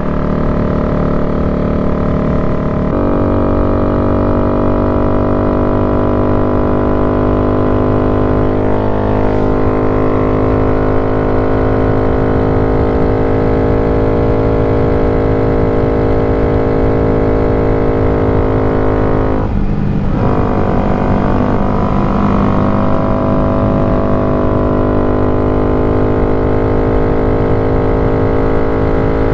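2023 Honda Grom's single-cylinder four-stroke engine, fitted with an aftermarket exhaust, running steadily under way as heard from the rider's position. The engine note shifts about three seconds in and breaks off briefly about twenty seconds in before picking up again.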